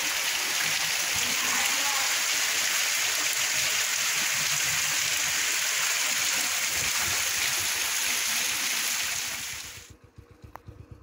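Heavy rain pouring down in a dense, steady hiss. It cuts off suddenly near the end, leaving a much quieter stretch with a single click.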